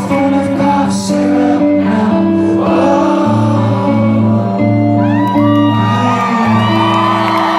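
Live rock band playing loud, with singing and shouts and whoops from the crowd.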